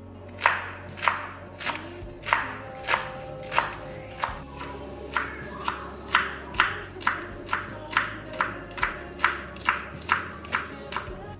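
Kitchen knife chopping lettuce and spring onions on a wooden cutting board: steady strikes of the blade on the board, about two a second, coming a little faster in the second half.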